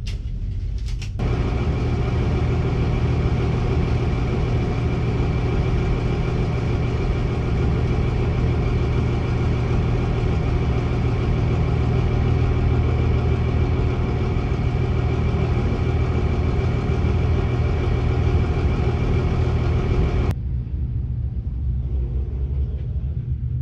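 A Cummins diesel engine runs at a steady, unchanging speed, a constant low drone with no revving. About twenty seconds in the sound cuts abruptly to a quieter, duller engine drone.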